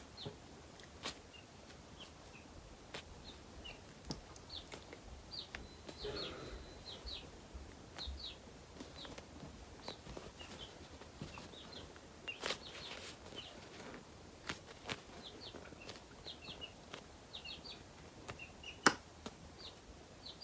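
Faint chirping of small birds: short, high calls every second or so, with a few soft clicks and handling noises in between.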